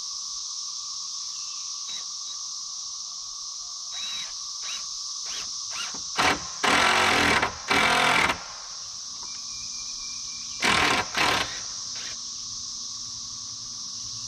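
Handheld power driver running in short bursts as screws go into the coop's rafters: a brief run about six seconds in, then two runs of about a second each, and two shorter runs near eleven seconds.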